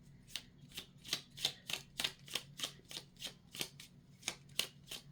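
Deck of Lenormand cards being shuffled by hand: a steady run of short, soft card slaps about three a second.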